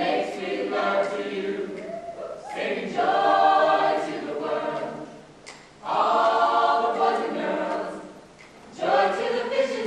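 A mixed-voice a cappella group of men and women singing in close harmony, in held chords sung in phrases a few seconds long with brief breaks between them.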